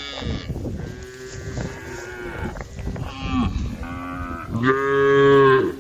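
Cattle in a herd mooing, several calls overlapping one after another, with the loudest and longest moo near the end.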